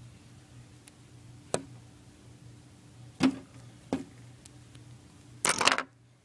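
Handling noise from a phone being swung about as it films: a few sharp clicks and knocks, then a louder brief rustle near the end, over a steady low hum.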